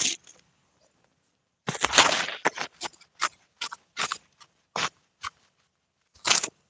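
A run of short, irregular noises with no clear pitch. A burst of about a second comes near the two-second mark and is the loudest. About seven quick ones follow, then another short burst near the end.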